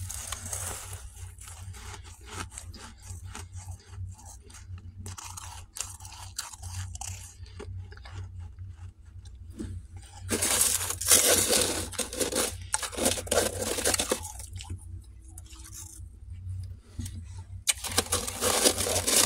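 Freezer frost crunching and scraping under fingers as it is raked off the freezer walls and packed into a dish. Dense crackling throughout, with loud spells about ten seconds in and again near the end.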